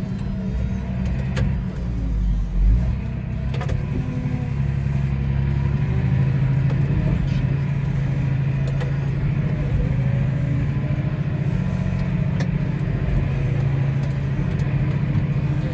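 Tractor engine running steadily while driving, with a low rumble and a few light knocks and rattles.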